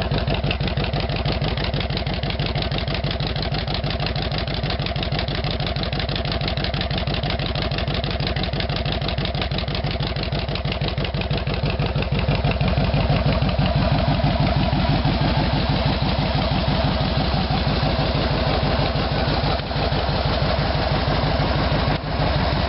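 Kawasaki Vulcan 2000's 125-cubic-inch V-twin idling with a fast, even low pulsing through Hard-Krome 3-inch straight pipes fitted with Big City Thunder baffles, heard close to the exhaust outlet. It is loud throughout and gets a little louder about halfway through.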